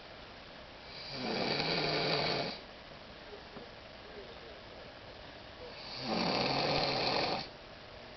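A sleeping woman snoring loudly: two long, rasping snores about five seconds apart.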